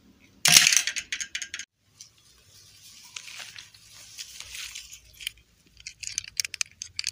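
Hand rustling through dry grass while handling small plastic doll figures. There is a sharp crackly run of clicks about half a second in, a softer rustle in the middle, and more quick clicks near the end.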